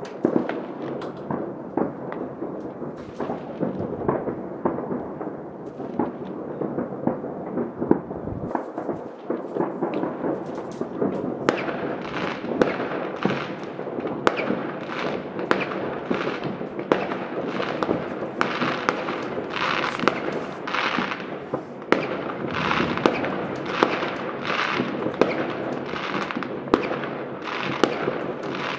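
Many fireworks going off across a city at once: a continuous rumble of distant bangs mixed with crackling. Partway through, the pops become sharper and more crackly, coming in quick irregular succession.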